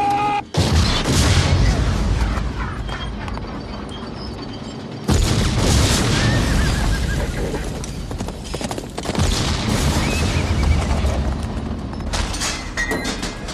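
Tank shell explosions going off close by, three big blasts about four seconds apart and a smaller one near the end, each dying away slowly. A horse whinnies between the blasts.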